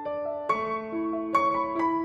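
Background music: a gentle piano melody of single notes and chords, a few new notes a second.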